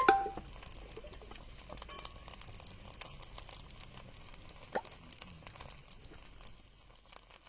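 Campfire crackling: irregular small pops and snaps over a faint hiss, with a louder clatter right at the start and a sharper pop about five seconds in.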